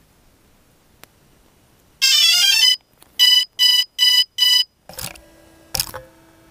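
A drone's electronic beeps: a quick falling run of tones, then four short, even beeps about 0.4 s apart. Knocks and handling noise follow near the end.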